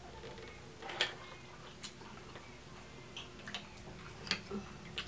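Scattered small clicks and taps of eating at a seafood-laden table, about half a dozen short sharp ones spread over a few seconds, from shells and utensils being handled.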